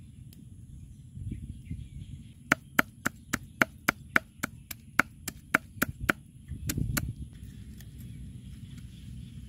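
Heavy cleaver chopping pig intestine and chilies on a wooden chopping block: a quick run of about a dozen sharp chops, roughly four a second, starting about two and a half seconds in, then a couple of heavier knocks.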